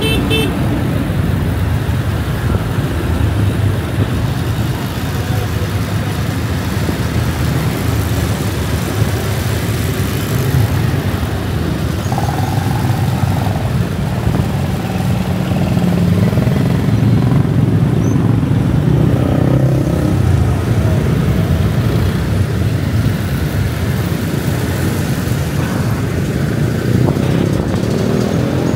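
Motorcycle riding through city traffic: its engine and the road noise run steadily, with other cars and motorbikes around.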